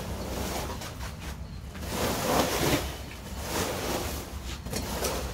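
Woven plastic sacks and sheeting rustling and crackling as they are pulled aside and prodded with a snake hook, loudest about halfway through.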